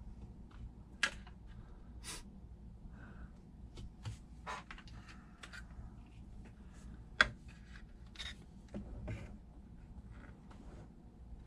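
Scattered clicks and knocks of hard 3D-printed plastic parts as an airsoft folding gun is handled and its pieces shifted, with a sharp click about a second in and the loudest one about seven seconds in.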